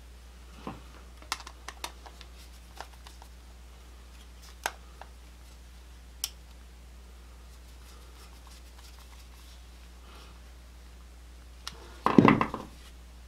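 Small clicks and taps of a screwdriver and copper wire working the screw terminals on a pair of electrical receptacles. About twelve seconds in, a short, louder clatter as a screwdriver is laid down on a wooden workbench.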